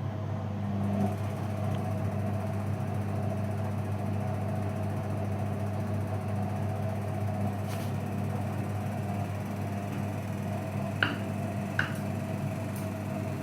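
Washing machine running with a steady low hum, with two short knocks near the end.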